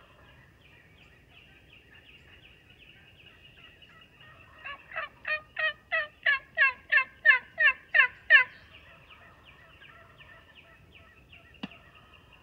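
Wild turkey yelping: a loud run of about a dozen yelps, roughly three a second, each note falling in pitch, with fainter yelping going on before and after. A single sharp click near the end.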